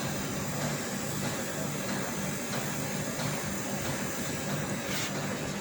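Split-type air conditioner's outdoor condensing unit running with a steady hum.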